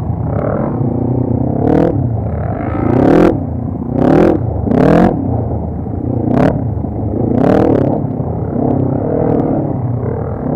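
ATV engines running and revving repeatedly, the pitch rising and falling with each blip of the throttle. Several short, loud rushing bursts stand out over the engine sound.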